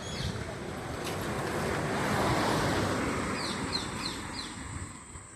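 A rushing noise swells over about two seconds and fades away, with a few short bird chirps near the end.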